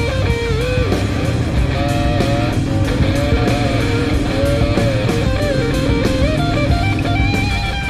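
Rock music with electric guitar over a steady bass line.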